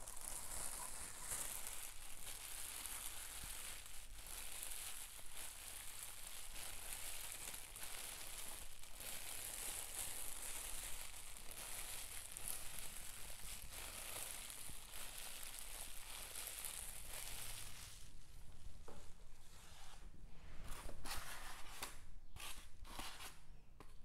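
Clear plastic packaging crinkling and rustling as it is pulled off and handled, a dense crackle through most of it that thins to a few separate crackles and rubs near the end.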